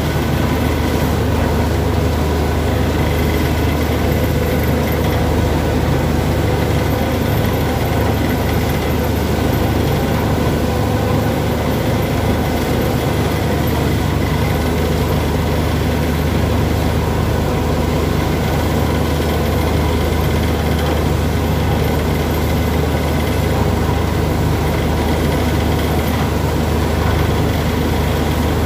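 A borewell drilling rig running steadily: a heavy engine drone with a constant rushing hiss as air and water blow out of the newly drilled borehole, which has struck water.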